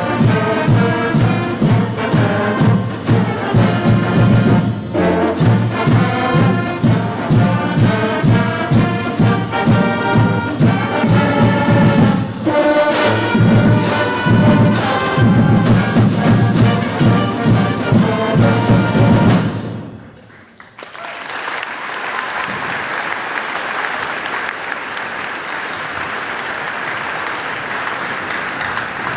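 A band with trumpets and trombones playing, stopping about twenty seconds in; after a short gap, an audience applauds steadily.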